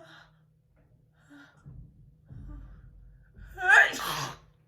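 A woman sneezing once: a few short catching breaths build up, then about three and a half seconds in a loud rising "ah" breaks into a noisy "choo".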